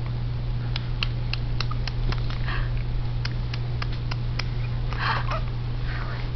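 A steady low electrical hum, with scattered light clicks and a few short breathy rustling noises.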